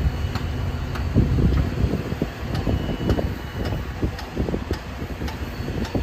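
Heavy construction machinery running with a steady low rumble, broken by uneven low thumps, with faint regular ticking above it.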